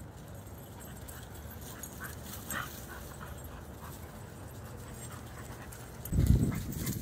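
Dogs panting as a pack plays, with a short higher sound about two and a half seconds in. Near the end comes a loud low rumble lasting under a second.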